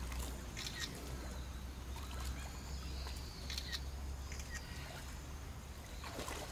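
Small birds chirping several times, short high calls, over a low steady rumble, with faint water sounds from rhinos wading in a shallow pool.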